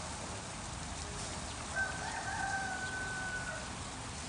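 A rooster crowing once, faintly: a single held call of about two seconds, heard over a steady background hiss.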